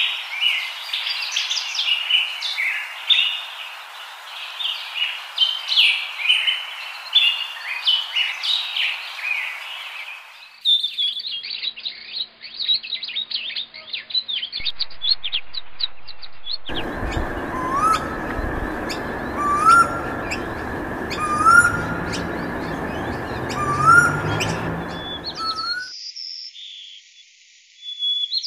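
Birds singing and calling, in several sections that change abruptly: quick high chirps, then a fast high trill, then a slow series of short rising whistles about every two seconds, then more high chirps near the end.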